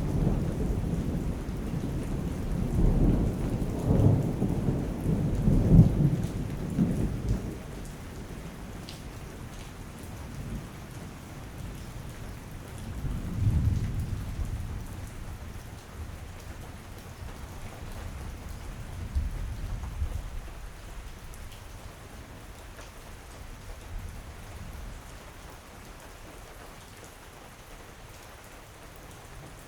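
Steady rain with rolling thunder. A long deep rumble swells several times in the first seven seconds, another roll comes about thirteen seconds in, and fainter rumbles die away after that, leaving only the rain.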